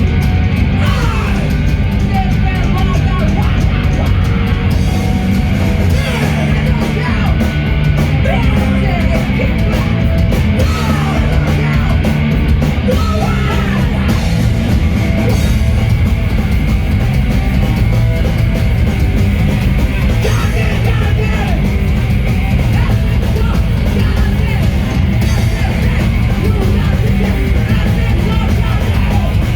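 Loud heavy punk-rock band music with yelled vocals.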